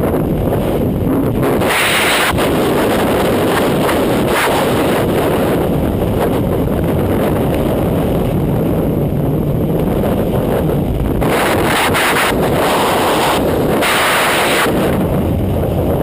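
Freefall wind rushing and buffeting over a skydiver's camera microphone, a loud steady roar of noise. It brightens into a harsher hiss a couple of seconds in and again for several seconds near the end.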